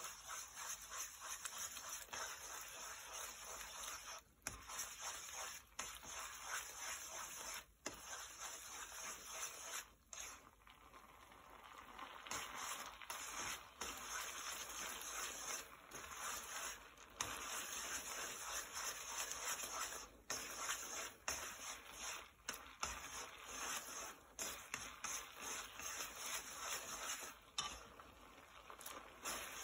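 Egg-and-cheese carbonara sauce sizzling and bubbling in a nonstick frying pan while spaghetti is stirred through it, with light scraping of the utensils on the pan. The sizzle drops away briefly several times.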